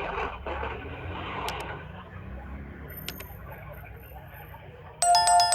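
Faint background noise with a few light clicks. About five seconds in, a phone's electronic ringing chime starts suddenly and loudly, holding a steady bright tone.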